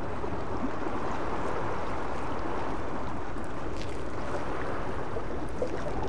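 Sea swell washing against an exposed shoreline: a steady rushing of water with no separate wave crashes.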